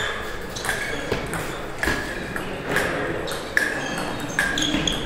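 Table tennis rally: the celluloid-type ball clicking sharply off the rubber bats and pinging as it bounces on the Donic table, a hit or bounce every half second to a second.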